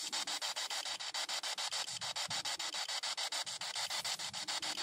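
P-SB7 spirit box (frequency-sweep radio) scanning: radio static chopped into rapid, even pulses about nine times a second as it hops from station to station.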